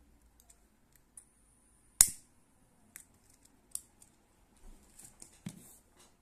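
Disposable lighter worked at the end of a nylon cord to seal it by melting: a soft gas hiss with one loud sharp click about two seconds in, and a few lighter clicks after. Near the end come the rustle of cords being handled and a light thump.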